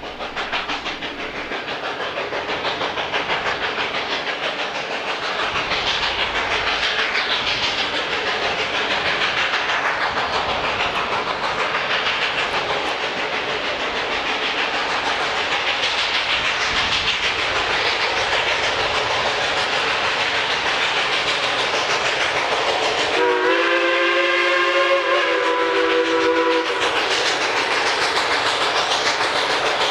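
Durango and Silverton narrow-gauge steam train passing, its wheels clattering over the rail joints. About three-quarters of the way through, the locomotive sounds one whistle blast of about three and a half seconds, a chord of several tones.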